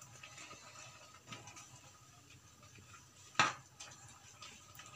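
Steel spoon stirring noodles in a non-stick kadhai: soft, scattered scraping and ticks, with one sharp clink of metal on the pan about three and a half seconds in.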